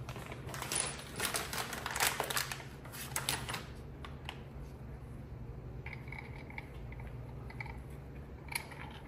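Loose steel flywheel bolts clinking and rattling for about three seconds, then a few lighter metal clicks as bolts are set into the flywheel by hand.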